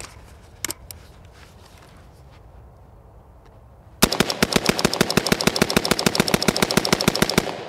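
Semi-automatic AR-15 rifle in 5.56 mm bump-fired from the hip: after a click of handling under a second in, a rapid string of about ten shots a second starts about four seconds in and runs for some three and a half seconds.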